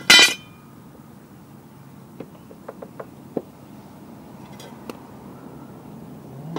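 Metal tools and mower parts being handled: one loud metallic clank with a short ring at the start, then a few light metallic taps and clicks.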